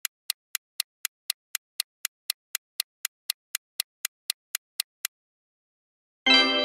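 Quiz countdown-timer sound effect: a clock-like ticking, about four ticks a second, that stops after some five seconds. About a second later a musical chord sounds and rings out, fading, as the answer is revealed.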